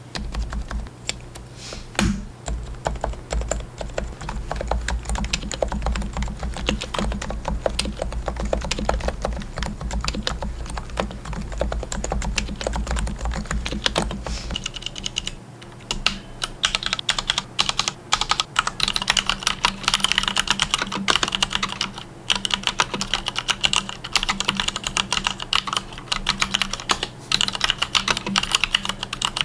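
Fast continuous typing on enthusiast computer keyboards. About halfway through the keystroke sound changes to a brighter, clickier character, as a different keyboard or switch type takes over.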